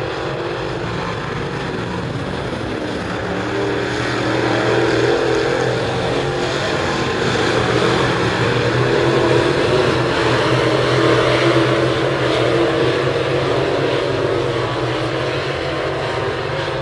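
V8 engines of dirt-track late model race cars running laps, a steady drone that swells louder from about four seconds in and eases off toward the end.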